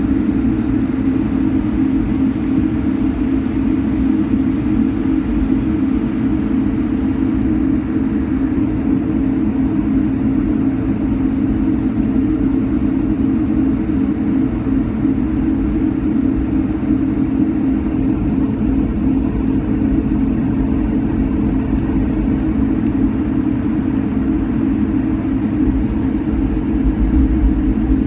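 Steady drone inside the cabin of an Air Canada Airbus A220-300 from its Pratt & Whitney geared turbofan engines and airflow, with a strong even hum and a faint high whine, unchanging throughout.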